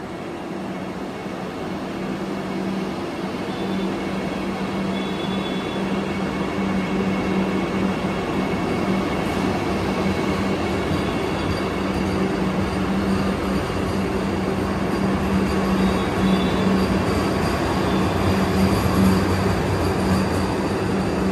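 Vande Bharat Express electric trainset running past: a steady rush of wheel and running noise over a steady low hum, growing slowly louder.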